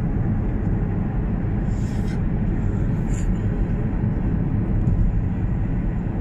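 Steady road and engine noise heard from inside the cabin of a moving car at highway speed.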